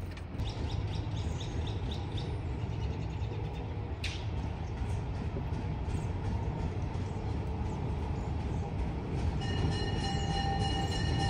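Diesel locomotive running as it approaches, a steady low rumble growing louder. Its horn sounds a sustained chord near the end.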